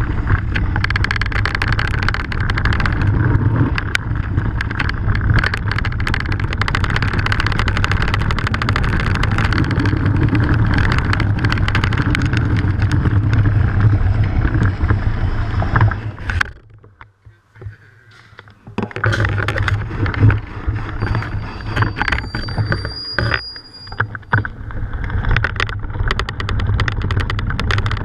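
Mountain bike rolling down a rocky gravel track: a steady rumble and clatter of tyres on loose stones with the bike and its mount rattling, and wind on the microphone. Past the middle the noise drops away for about two seconds, then the rattling picks up again, with a thin high squeal lasting a couple of seconds.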